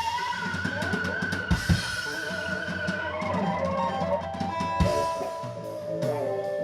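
Instrumental rock music: a band of drum kit with bass drum and snare, and sustained electric guitar, a long high lead note held through the first half.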